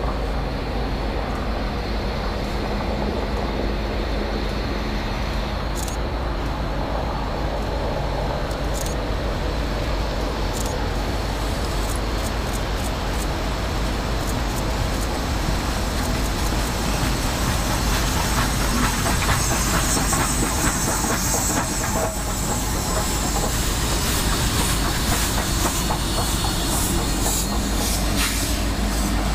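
Union Pacific steam special, hauled by Big Boy 4014 and 844, rolling past with a steady rumble and the clickety-clack of its wheels over rail joints. The clicks come more and more often after about twelve seconds.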